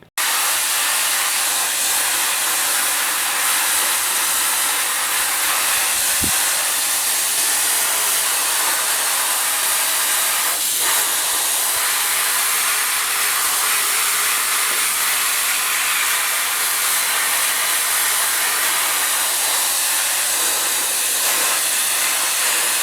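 Sandblaster blasting the top of an old running board, a loud, steady hiss of air and abrasive that starts suddenly and cuts off near the end. It is the paint and rust being stripped back to metal ahead of bodywork and welding.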